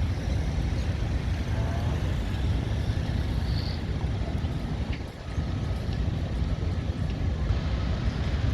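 Steady low engine rumble of motor traffic, with a brief drop in loudness about halfway through.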